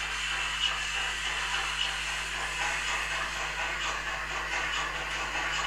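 H0-scale model steam locomotive hauling a passenger train along the layout: a steady hiss, with faint rhythmic clicking from the running train that comes in about halfway through.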